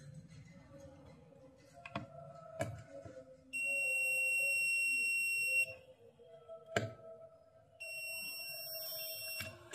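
Digital multimeter's continuity buzzer giving a steady high beep twice, first for about two seconds and then more quietly near the end, as the probes find a low-resistance path across a part on the welding inverter's circuit board. A few sharp clicks come between the beeps.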